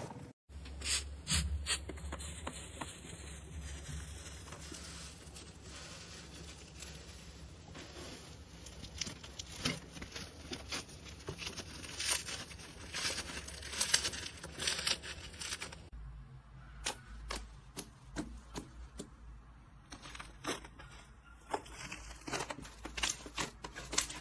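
Slime being handled and squeezed, giving irregular sharp crackles and pops over a low steady hum.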